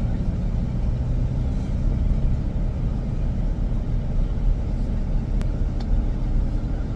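Low, steady rumble of a moving vehicle heard from inside the cabin.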